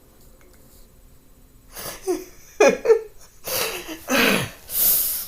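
A woman laughing helplessly: after a quiet moment come a few short squeaks falling in pitch, then loud wheezing, breathy gasps of laughter she can't hold back.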